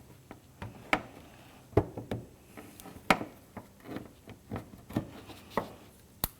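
Plastic push-pin clip being prised out of a trim panel with a tool: a string of irregular plastic clicks and knocks, about nine in all, with light scraping.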